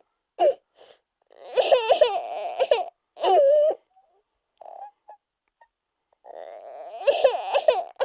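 A young child crying in short bursts and longer stretches, the pitch wavering up and down, with brief pauses between.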